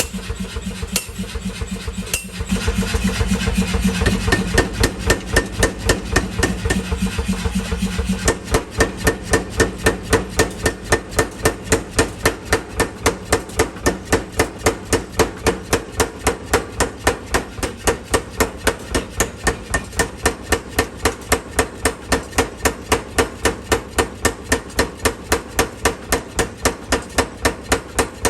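Mechanical power hammer forging a knife blank, striking in a fast, perfectly even rhythm. Its motor runs loudly under the blows for the first several seconds.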